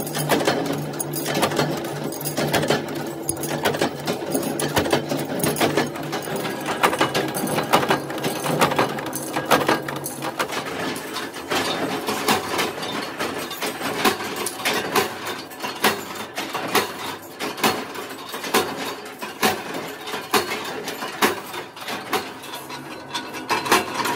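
Workshop machinery clattering: flywheel-driven mechanical power presses stamping steel oil filter parts, with rapid knocks and metal clinking over a steady motor hum that fades about halfway through.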